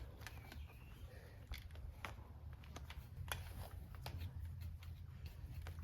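Faint scattered clicks and light scrapes of fencing wire being handled and tightened by hand, over a low steady rumble.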